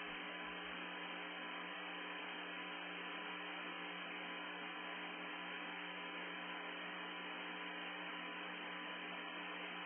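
Steady hiss with a low electrical hum underneath, unchanging, with no other sound standing out.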